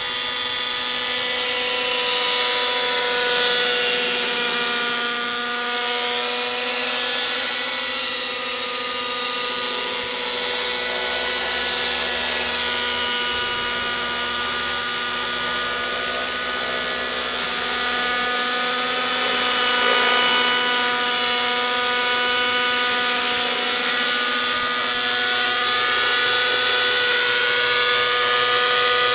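Align T-Rex 600 radio-controlled nitro helicopter in forward flight, its OS 55 glow engine and rotors running at a steady, high-pitched whine. The pitch wavers and the loudness swells slightly a few times as it flies around.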